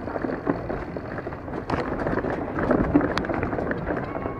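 Astrix Stryke full-suspension mountain bike riding a rough, loose dirt trail: tyres rolling over the ground, rattling knocks from the bike and wind on the microphone, with the sharpest knocks around two to three seconds in.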